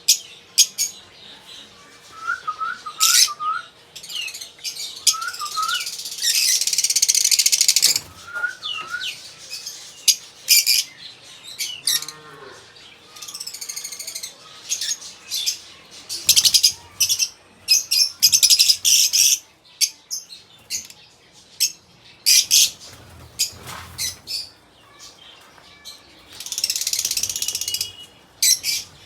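A group of lovebirds calling: a stream of shrill, sharp chirps and screeches, with two longer stretches of dense overlapping chatter, one starting about six seconds in and one near the end.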